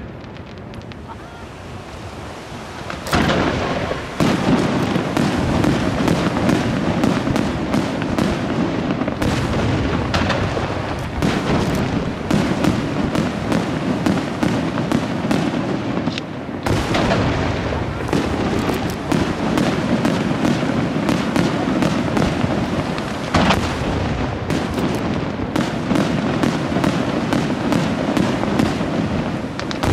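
Fireworks display: aerial shells bursting in a dense, continuous barrage of rapid, closely spaced bangs. It is lighter for the first few seconds, then thickens about three seconds in, with a brief lull about halfway through.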